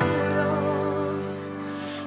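A woman singing a worship song over sustained accompaniment chords, holding a note with vibrato that tails off near the end.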